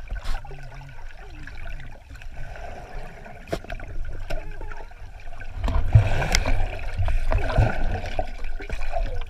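Water trickling and splashing, with scattered sharp knocks.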